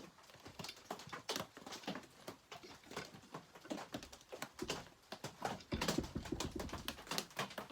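Irregular clicks and knocks of chainsaw parts and hand tools being handled during reassembly, with a louder stretch of clattering about six seconds in.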